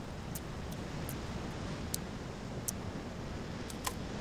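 Steady low wind-like outdoor noise in a snowy forest, with a few isolated sharp clicks scattered through it.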